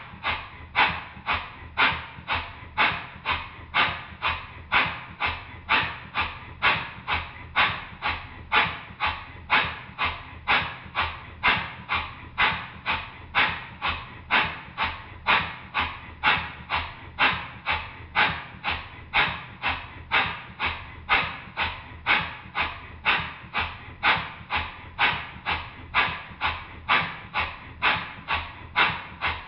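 Basset-Lowke Tangye model steam engine running on compressed air, its exhaust beats very even, a little over two a second. There is a beat at both ends of the stroke because the newly gasketed cylinder cover no longer blows, and the valve timing is set for smooth running.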